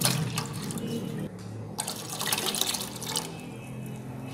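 Water poured from a jug into a steel pot of simmering kahwa, splashing in two spells: about a second and a half, a short break, then about another second and a half.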